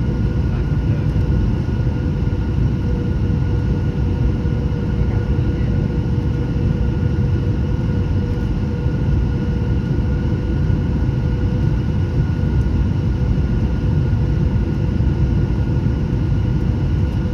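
Cabin noise of a Boeing 737-800 on final approach, heard over the wing: a steady rush of airflow and CFM56-7B engine noise, with two thin steady tones running through it.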